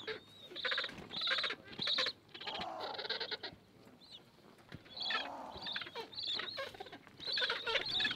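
Gentoo penguin colony calling: repeated bursts of harsh, pulsed squawks from many birds, coming every half second to a second, with a busier run of calls near the end.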